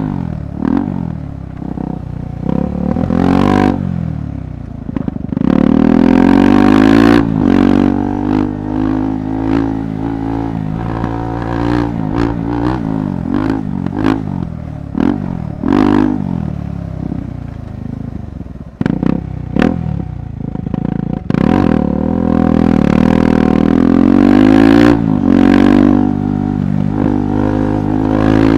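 KTM 390 Adventure Rally's single-cylinder engine being ridden off-road, its revs repeatedly climbing and dropping as the throttle opens and closes. Scattered sharp knocks and clatter come through over the rough ground.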